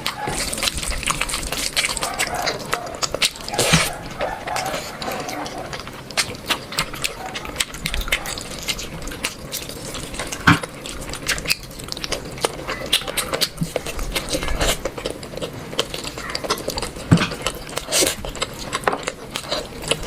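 Wet eating sounds of rice and curry: repeated short smacks and clicks of chewing and handling sticky food, with a few louder smacks.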